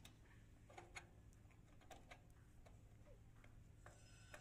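Near silence broken by a few faint, scattered clicks: the links of a homemade bicycle-chain wrench clinking against a steel nut as it is fitted by hand.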